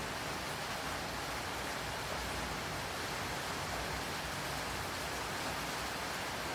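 Steady rain falling, an even hiss with no separate drops or knocks standing out.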